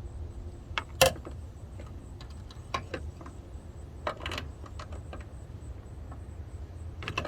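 Scattered metallic clicks and clinks of a hand tool working on the 13 mm bolt of a Jeep Wrangler JK's lower hood latch, the loudest about a second in, over a steady low rumble.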